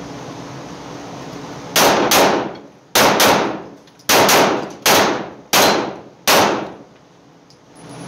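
Arex Delta Gen 2 9mm pistol firing nine shots, each ringing with the echo of an indoor range: three quick pairs, then three single shots spaced a little more slowly. A steady ventilation hum runs before the first shot.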